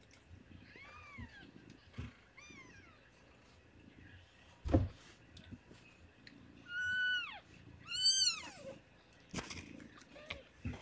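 Newborn kittens crying in high, thin squeaks that rise and fall, several separate cries, the longest and loudest a little past the middle. A single dull thump near the middle.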